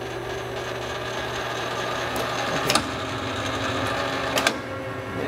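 Hardinge HLV-H precision toolroom lathe running steadily with its threading gears engaged, which makes it noisier, a gear whir. Two sharp clicks, about halfway and near the end, as a headstock lever is shifted.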